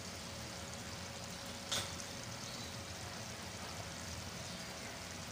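A pan of dal simmering on a gas stove, a steady low sizzling hiss, with one short tap about two seconds in.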